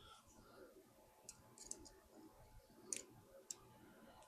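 Near silence with a few faint, sharp clicks scattered through it, like small parts or tools being handled during the cooler fitting.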